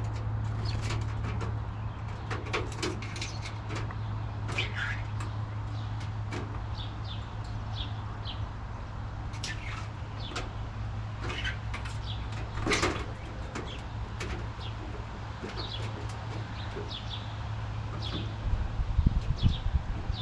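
Backyard birds chirping, many short scattered calls, over a steady low hum. A few low rumbling bursts come near the end.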